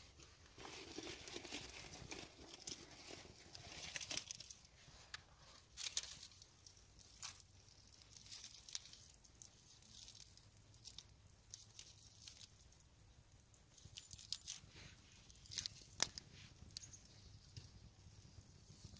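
Small fire of dry twigs and kindling crackling, with scattered sharp pops; it is busier for the first few seconds as the flames catch.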